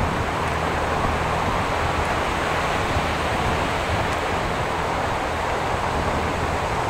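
Steady wind rush and rolling noise from riding a bicycle, with a faint low steady hum underneath.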